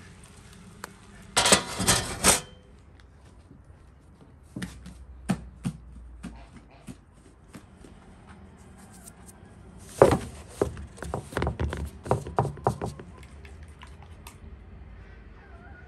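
Kitchen handling sounds: a short scraping rush, then scattered sharp clicks and taps of utensils against pans and bowls, growing busier later on.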